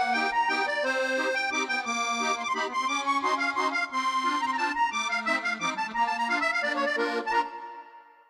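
Instrumental theme music with a clear melody, fading out about seven seconds in.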